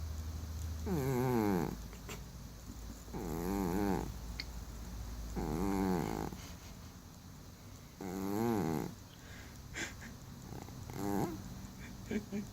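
Domestic cat snoring loudly in its sleep: five pitched snores, one about every two and a half seconds, each rising then falling in pitch.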